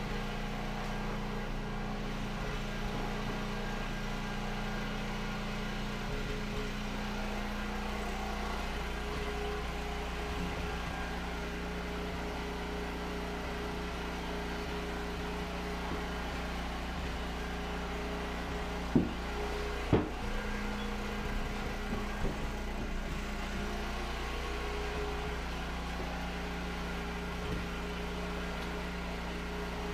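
Small engine running with a steady drone, powering the pump-out of a flooded basement. Two sharp knocks come about two-thirds of the way through.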